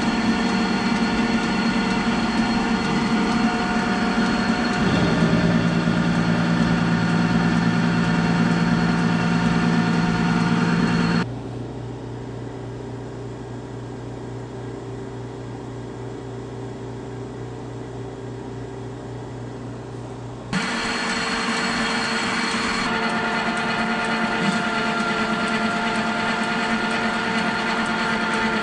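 Metal lathe running with a steady whine while the end of the shaft is turned. About a third of the way in it stops, leaving a quieter low hum, and it starts up again about two-thirds of the way in.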